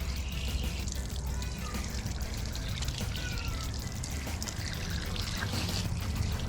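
Water pouring and trickling steadily from the bottom drain valve of an old electric tank water heater as it is drained, flushing out sediment.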